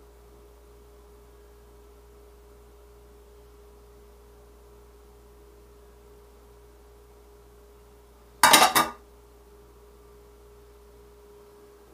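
A steady background hum with a faint held tone; about eight and a half seconds in, a plate is set down hard on the counter with a brief loud clatter.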